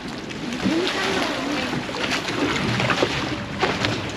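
Voices of a group of people chattering, no words clear, over a steady wash of water and boat noise around moored speedboats.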